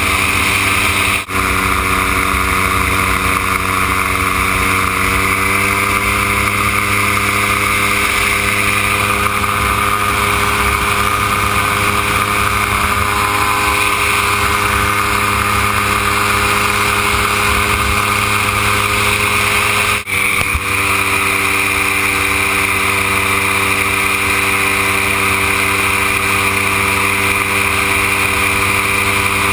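Gyroplane engine and propeller running steadily in flight, recorded on board. The pitch rises slightly about five seconds in, and the sound dips briefly twice.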